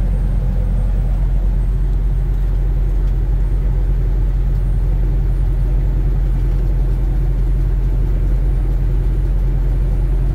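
Semi truck's diesel engine and road noise, heard inside the cab while cruising at highway speed: a steady low drone that does not change.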